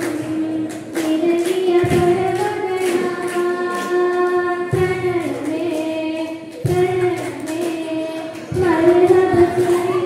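A girl singing solo into a microphone, holding long, steady notes with short breaks between phrases.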